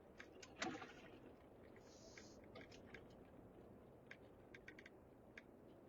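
Faint scattered clicks and taps of a phone being handled and fitted into a phone mount, with a slightly louder click well under a second in.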